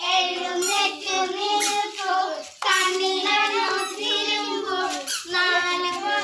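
Children singing a ring-game song together in sung phrases, with short pauses between the lines.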